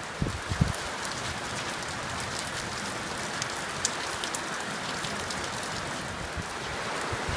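Heavy, steady rain from a winter downpour, with many individual drops ticking close by. A few low thumps come in the first second.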